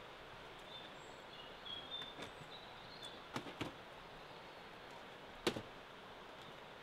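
Faint outdoor ambience with a few short high chirps early on and several sharp clicks or knocks, the loudest about five and a half seconds in.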